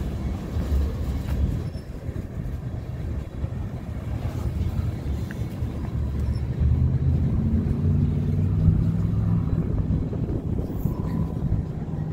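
Railroad tank cars of a freight oil train rolling past: a steady low rumble of steel wheels on the rails, growing a little louder about halfway through.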